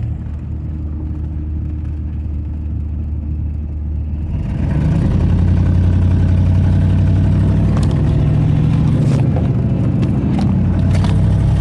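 4.6 L V8 engine running while driving on a test drive checking for a misfire on cylinders seven and eight. It gets louder from about four and a half seconds in as it pulls harder.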